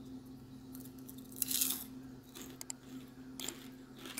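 Crisp caramel corn crunching: a loud crackling burst about a second and a half in, then a few sharper crackles, over a steady low hum.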